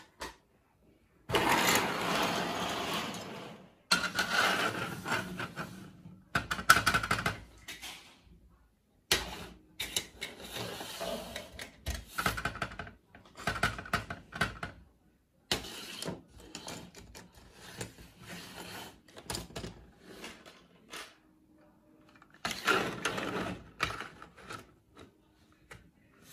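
Small plastic toy pieces clicking and clattering as they are handled and set down on a hard table, with several stretches of rustling; the loudest rustle comes about a second in and lasts a few seconds.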